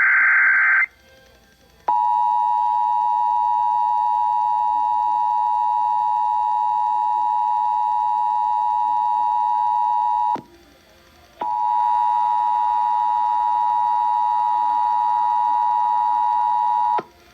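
Emergency Alert System transmission: the end of a SAME digital header burst (a harsh data screech) about a second in, then the EAS attention signal, a steady dual tone of 853 and 960 Hz. The tone cuts off after about eight seconds and sounds again a second later for about five and a half seconds. It announces the start of the coordinated monthly EAS test.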